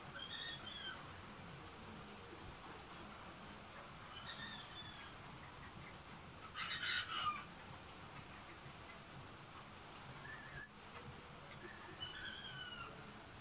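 Birds and fowl calling: a high, fast chirping about three times a second, a few short gliding call notes, and one louder call about seven seconds in.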